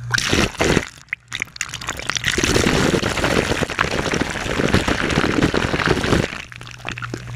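Water gushing and splashing out of an air-conditioning condensate drain line as it is flushed: a few short splashes, then a steady rush from about two seconds in that cuts off sharply near the end. A steady low hum follows.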